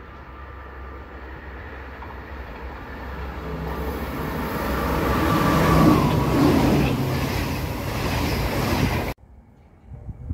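Yellow-and-blue NS passenger train running through the station on the near track at speed. The rumble swells as it approaches and is loudest as it passes, with a whine that drops slightly in pitch, then cuts off abruptly about nine seconds in.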